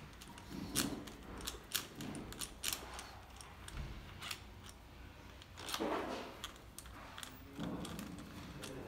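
Irregular small metallic clicks and knocks of hand tools and a compression-tester fitting being handled on a bare diesel engine block, with a few softer scrapes between them.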